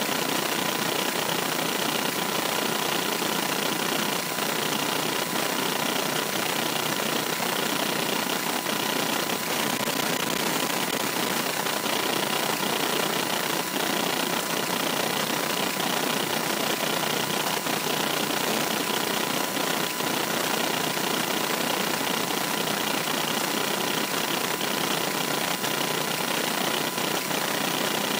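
Steady road and engine noise inside a moving car's cabin, even in level throughout, with a faint steady high tone running through it.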